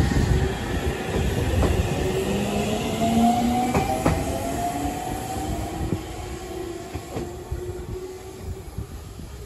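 JR Central Series 313-3000 electric train pulling away, its Toshiba IGBT VVVF inverter and traction motors giving a whine of several tones that climb slowly in pitch as it accelerates. A few sharp clicks come from the wheels on the track over a low rumble, and the sound fades as the train moves off.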